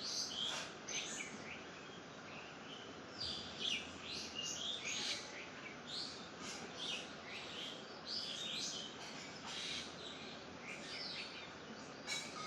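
Several small birds chirping and twittering, short overlapping calls following one another throughout, over a faint steady background hiss.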